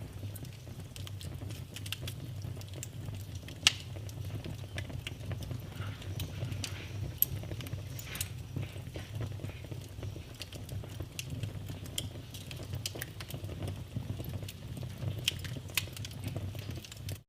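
Wood fire burning in a fireplace: a steady low rumble of flames with scattered crackles and snaps, and one sharp pop a little under four seconds in.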